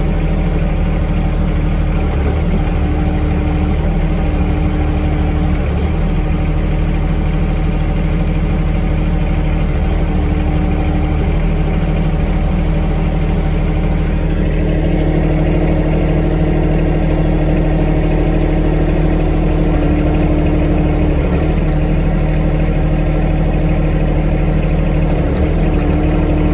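John Deere 2025R compact tractor's three-cylinder diesel running steadily, heard from inside the cab. A higher hum comes in and drops out several times as the hydraulics work the front snow plow blade.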